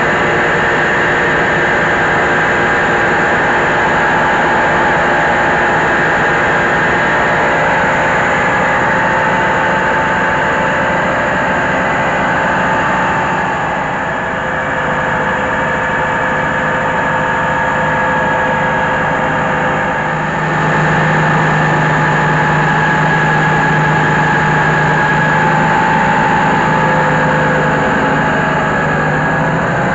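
Diesel-engined mobile rice huller running steadily while milling paddy, a loud, even mechanical drone with a constant whine on top. A lower hum joins about two-thirds of the way through.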